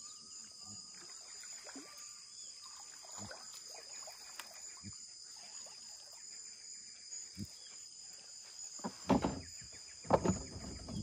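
Steady high-pitched drone of a tropical forest insect chorus, with short whistled bird calls in the first few seconds. Near the end come two louder, short noises.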